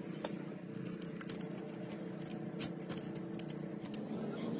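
Scattered light clicks and taps of fingers handling and pressing adhesive tape onto a metal loudspeaker frame, over a steady low hum.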